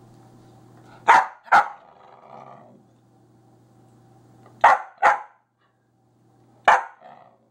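A dog barking: five short, sharp barks, one pair about a second in, another pair past the middle, and a single bark near the end.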